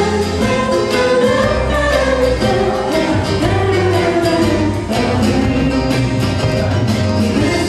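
Live pop song: a female lead voice sings over keyboard accompaniment, with a second female voice joining in.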